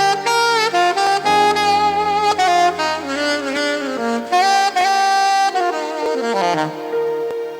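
Instrumental music: a saxophone plays a flowing melody with slides between notes over held chords.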